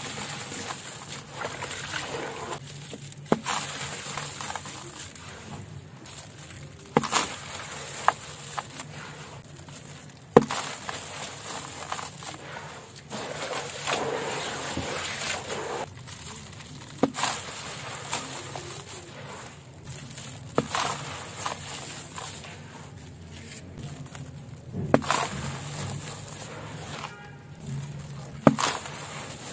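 Wet, gritty charcoal-sand crumbles scooped by hand, squeezed and poured back into a plastic tub of water, with a continuous sloshing, crumbling noise. Sharp splashes or knocks come every few seconds.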